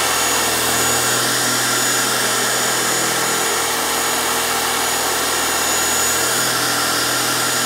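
Dual-action car polisher running steadily at one set speed, its pad working compound over car paint to cut out swirl marks: a constant motor whine with a thin high tone on top.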